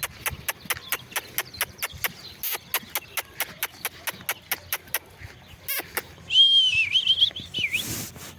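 A rapid run of sharp clicks, about five a second, for the first five seconds or so, then a loud wavering whistle lasting about a second and a half.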